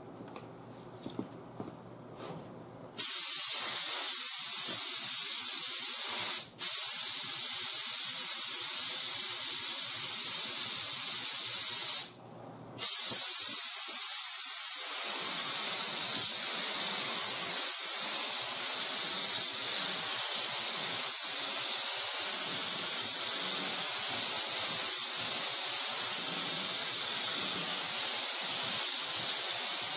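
Binks Model 7 siphon-feed spray gun spraying a wet coat of paint at 25 psi at the gun: a steady loud hiss of compressed air and atomised paint from the air cap, starting about three seconds in. The hiss breaks off twice, once for an instant and once for about half a second, as the trigger is let go between passes.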